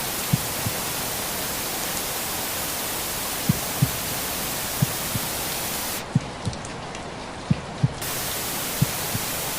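Steady rain-track white-noise hiss with a heartbeat sound laid over it: soft low lub-dub double thumps about every 1.3 seconds. About six seconds in, the hiss turns duller for two seconds, losing its high end.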